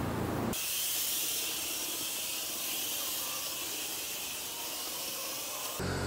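Spray wand hissing steadily as it mists liquid under pressure. The hiss sets in abruptly about half a second in and cuts off just before the end.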